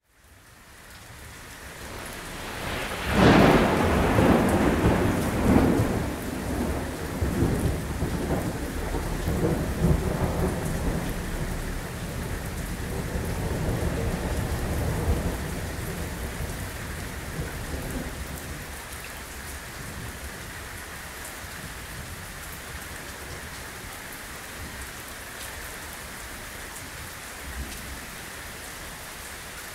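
A loud thunderclap about three seconds in, rolling on in rumbles that slowly die away over some fifteen seconds, above steady torrential rain that then carries on alone.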